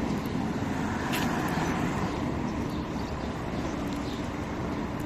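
Steady street ambience of road traffic, with a faint click about a second in.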